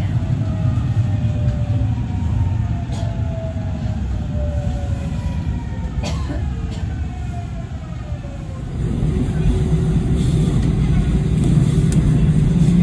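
Seoul Subway Line 4 train heard from inside the car: over the rumble of wheels on track, the motors' whine falls steadily in pitch as the train slows into a station. About nine seconds in, the sound cuts to the train running steadily with a louder low rumble.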